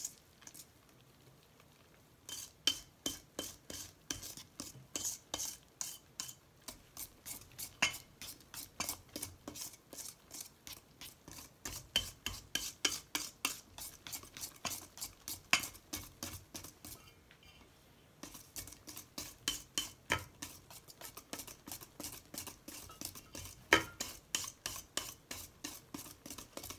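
Wire whisk beating cake batter in a stainless steel bowl: a quick, steady rhythm of about three scraping strokes a second, with the wires clinking against the metal. The whisking stops for about two seconds near the start and briefly again about two-thirds of the way through.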